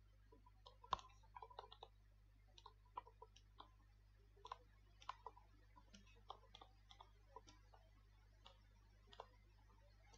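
Faint, irregular light clicks and taps of a stylus tip on a pen tablet or touchscreen as words are handwritten, over a low steady electrical hum. The sharpest click comes about a second in.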